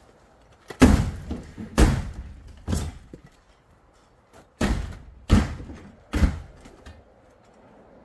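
Six heavy bangs in two sets of three: a firefighter's hook striking the sheet-metal top panel of a sectional garage door to knock in a triangle cut in it. Each bang dies away quickly.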